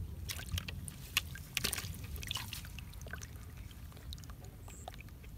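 Small splashes and knocks of water in a plastic bucket as a freshly caught fish is let go into it and flaps, a quick cluster of them in the first two to three seconds, then settling.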